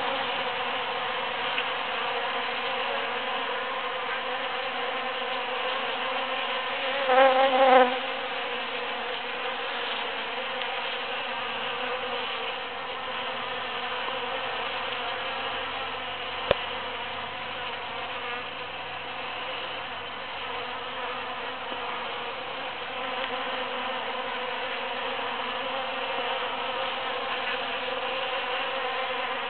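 Honeybees buzzing steadily while foraging in a large cactus flower. About seven seconds in, one bee's buzz swells briefly louder, and a single sharp click comes near the middle.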